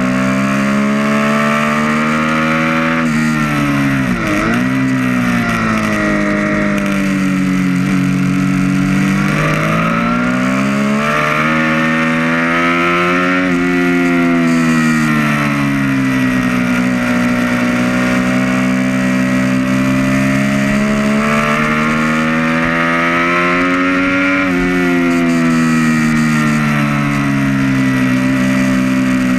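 2012 Triumph Street Triple R's 675 cc inline three-cylinder engine heard onboard at track speed, its pitch climbing under acceleration and dropping on braking and gear changes through a series of corners. The sharpest drop comes about four seconds in, followed by several long rises and falls.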